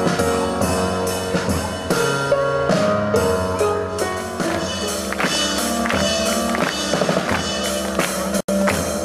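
Band music with a drum kit keeping a steady beat, cutting out for an instant near the end.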